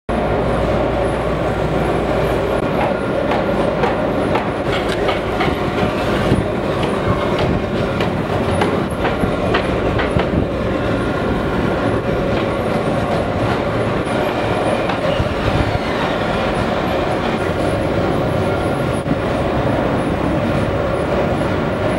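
Steady, loud mechanical running noise, rumbling and rattling without letting up, with scattered sharp clicks and knocks in roughly the first half.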